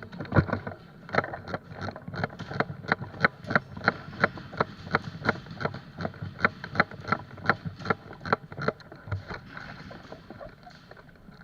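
Footsteps at a brisk pace, about three steps a second, fading out after about nine seconds.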